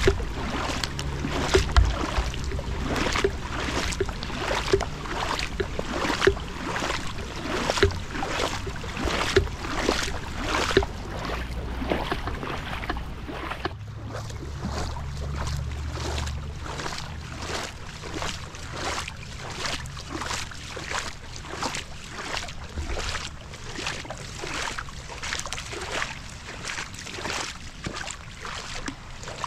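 Floodwater splashing in a steady rhythm, about one to two splashes a second, with wind rumble on the microphone.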